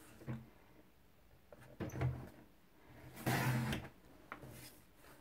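Sliding cutter of a Stampin' Up! paper trimmer running down its track and slicing through a sheet of paper: a short scraping cut about three seconds in, the loudest sound here. Before it come a few soft knocks as the paper is set against the guide, and a couple of light clicks follow it.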